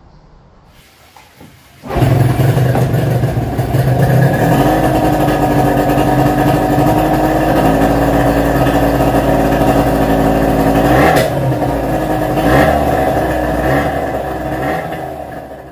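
Hangkai 18 HP two-stroke outboard motor running on a stand. It comes in abruptly about two seconds in and runs at a fairly steady speed, with a sharp knock about eleven seconds in. It fades away near the end.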